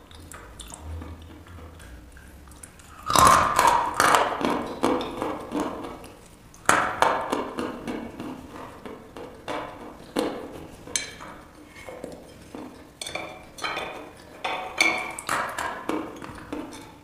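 Dry chalk being bitten and chewed: a first loud crunching bite about three seconds in, then several more bites with crisp gritty chewing between them.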